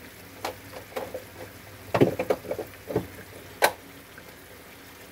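A series of about ten light knocks and clicks, bunched through the middle, the sharpest one near the end. Under them, a faint steady hiss from a fish and tomato braise simmering in a wok.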